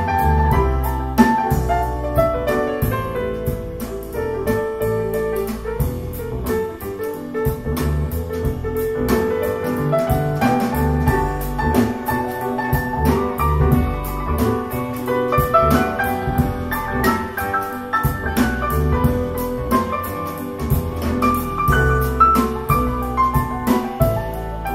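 Jazz piano playing with bass and drums, heard as played back through a pair of Fluance Ai61 powered bookshelf speakers and recorded in the room.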